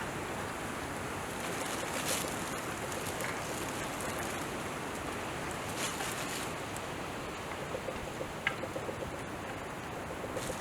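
Steady rush of flowing water, with a few brief scrapes and small clicks about two, six and eight and a half seconds in.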